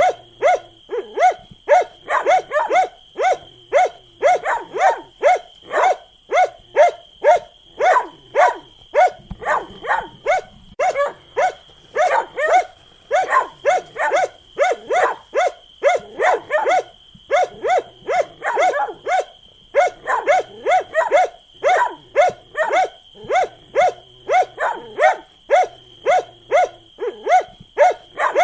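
Dog barking repeatedly in a fast, steady run of about two to three barks a second, with a few brief pauses.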